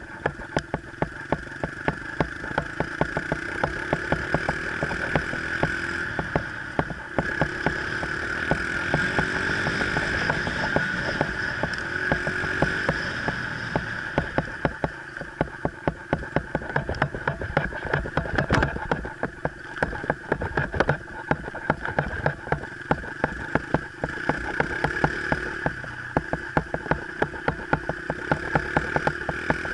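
Small four-stroke single-cylinder dirt bike engine, a Honda XR70, running under the riding camera, its pitch rising and falling as the throttle opens and closes, highest about a third of the way in. A steady run of sharp clicks sounds all the way through.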